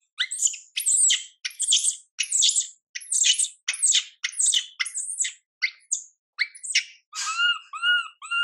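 Infant macaque crying in distress: a string of high-pitched screeching calls, one after another with short silent gaps between them. Near the end they turn into quicker, shorter arched whimpers.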